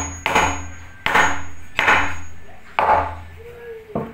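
Hammer blows on wood, nailing stair timber: four evenly spaced strikes about one every 0.8 s, each ringing briefly, followed by a sharp click near the end.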